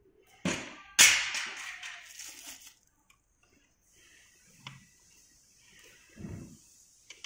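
Hard knocks and crackly rustling of plastic wrapping film as the wrapped furniture part is handled, strongest about a second in and fading out after a couple of seconds. Then a few light clicks and a soft thump as the Allen key works on the bolt.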